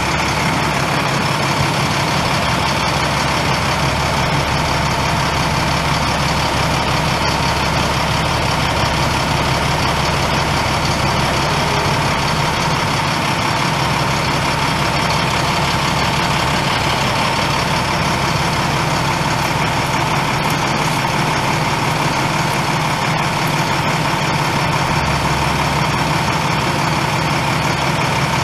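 2008 International 7500 bucket truck's MaxxForce 10 9.3-litre inline-six turbo diesel idling steadily, with a steady whine over it.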